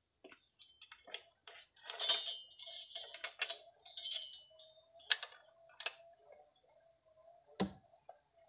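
Metal saw chain clinking and rattling as it is handled on an idle chainsaw's long extension bar, in irregular clicks with a busy cluster about two seconds in and a single knock near the end.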